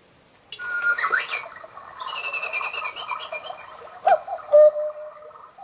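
Black Forest cuckoo clock striking the hour. About half a second in, the clockwork starts whirring and clicking. Near the end comes the cuckoo's two-note call from its bellows pipes, a higher note then a lower one, each with a click.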